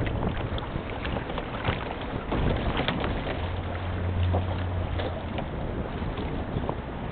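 Outdoor wind blowing across the microphone: a steady, gusting rush with scattered small ticks. A low hum rises briefly about halfway through.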